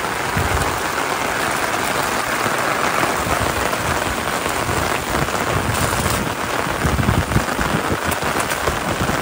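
Steady rain falling on a car awning, with heavy drops landing close by, more of them in the second half.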